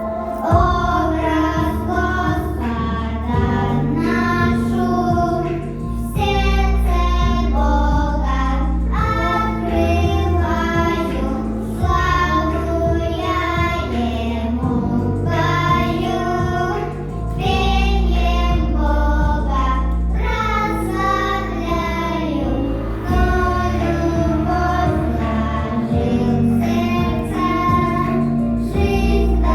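Girls singing a song together over a backing track with a strong bass line.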